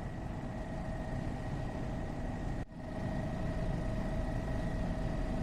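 Helicopter in flight, heard from inside a cabin with the doors off: a steady engine and rotor drone carrying two steady high tones, with a heavy low rumble. It dips briefly about halfway through and then carries on the same.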